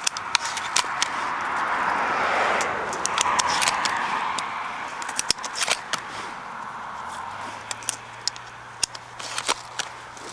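Shotgun shells being pushed one after another into the magazine of a camouflage-wrapped shotgun: a string of sharp, irregular metallic clicks and scrapes. A swell of rustling handling noise fills the first half.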